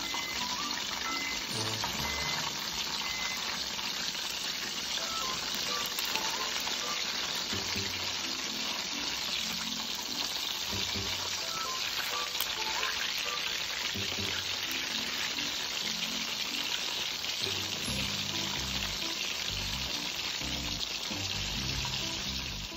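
Pork belly chunks deep-frying in a pan of hot oil, sizzling steadily, with background music underneath.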